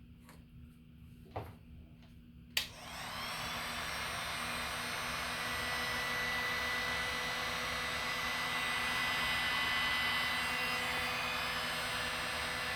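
Hot-air blower switched on with a click about two and a half seconds in, then running steadily with a thin whine, heating heat-shrink tubing so it melts and shrinks tight over a drive shaft.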